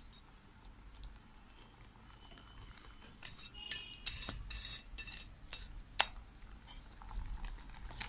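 Wire whisk beating wet muffin batter in a glass bowl, the wires clinking and tapping against the glass. Soft scraping at first, then sharper clinks from about three seconds in.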